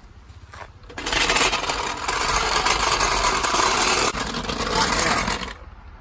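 Steel floor jack rolled across asphalt, its wheels rumbling and scraping loudly for about four and a half seconds, starting about a second in, with a brief break near four seconds.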